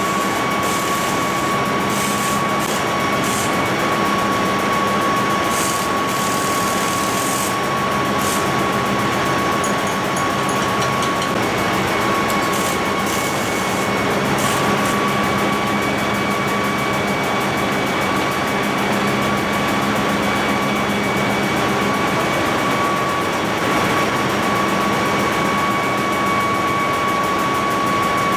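Ship's engine-room machinery running steadily: a loud, even din with a constant high whine and a low hum, with a few light clicks in the first ten seconds or so.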